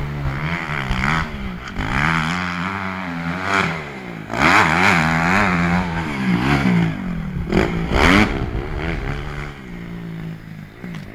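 250cc four-stroke motocross bike engine revving up and down over and over, its pitch rising and falling quickly with the throttle and gear changes, loudest about halfway through.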